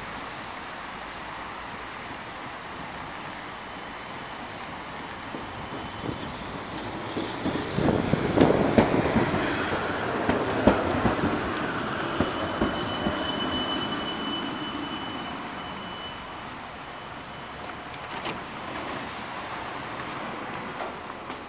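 Three-section 71-931M Vityaz-M low-floor tram approaching and passing close by, its wheels rumbling and clicking on the rails, loudest about eight to eleven seconds in. Then a high, steady whine as it slows to a stop.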